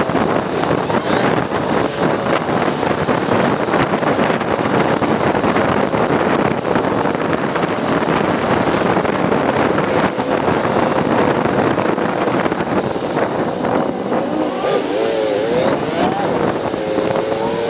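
Motorcycle being ridden through town: engine running under a steady rush of wind noise on the rider's camera microphone, with a few wavering tones near the end.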